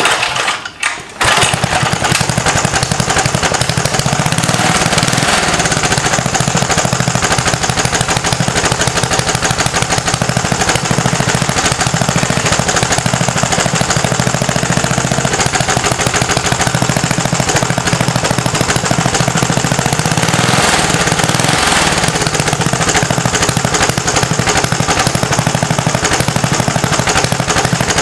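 A Briggs & Stratton single-cylinder flathead four-stroke minibike engine is started. It catches after a second or so of short bursts, then runs loud and steady with a rapid, even beat, and its speed changes briefly about twenty seconds in.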